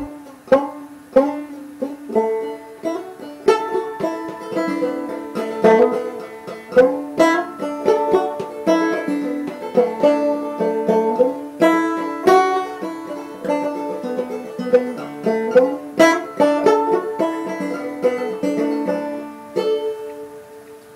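Banjo music: a tune of quick picked notes, fading out near the end.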